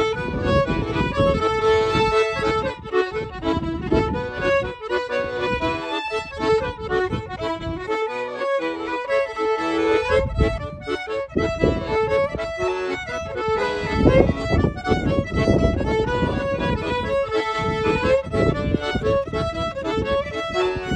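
Fiddle and piano accordion playing a set of jigs together in a lively duet.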